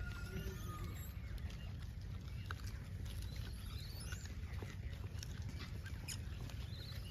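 Gray langurs feeding around a cardboard box, with scattered small rustles and ticks, over a steady low rumble. A short rising bird chirp comes about four seconds in and again near the end.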